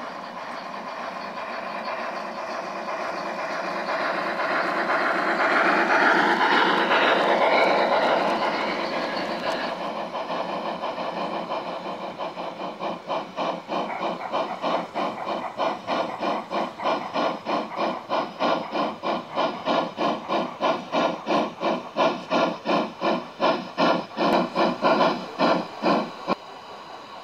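Gauge 1 model steam train running: first a rising hiss and rumble, then from about halfway a Märklin BR 56 model steam locomotive chuffing in an even beat of two to three chuffs a second, with steam hiss, which stops abruptly near the end.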